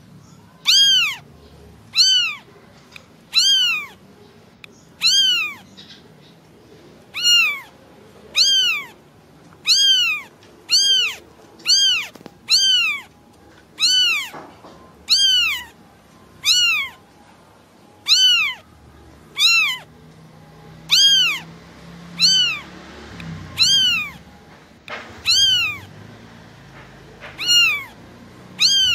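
Kitten meowing over and over: short, high-pitched calls about once a second, each rising then falling in pitch. These are a kitten's calls for its mother.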